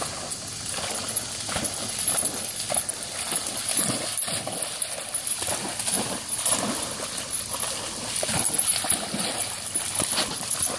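Whippet bounding through shallow water, each leap landing with a splash, in a quick uneven rhythm of about two or three splashes a second.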